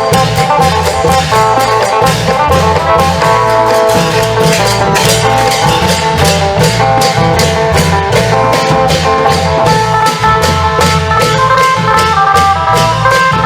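Isan long-drum band music: a phin (Isan lute) plays a fast, steady melody over klong yao long drums and a dense, even beat of cymbal strokes.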